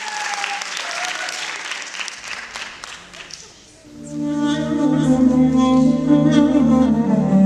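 Audience applauding, dying away over about three seconds. About four seconds in, slow music with low bowed strings starts.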